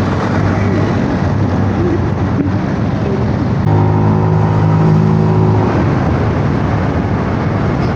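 Riding noise from a Honda Click 150 scooter on the move: wind rush and road and engine noise, with wind on the microphone. About halfway through, a steady low tone sounds for about two seconds and cuts off sharply.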